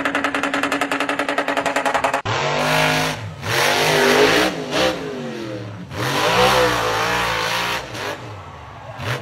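Toyota Land Cruiser engine held at high revs with a rapid, even stutter while it spins in tyre smoke. After a sudden cut, a monster truck engine revs up and down in loud surges as it jumps.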